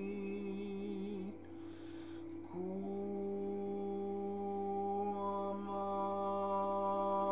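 A sustained vocal toning note with a slow vibrato over a synthesized drone in D major. The voice stops a little over a second in, with a breath-like hush, then comes back about two and a half seconds in with a short upward slide and holds steady. Higher steady drone tones join about five seconds in.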